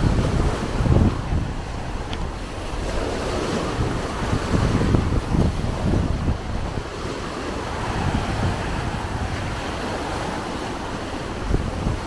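Small waves breaking and washing up a sandy shore at the water's edge, a steady surf wash, with gusts of wind buffeting the microphone.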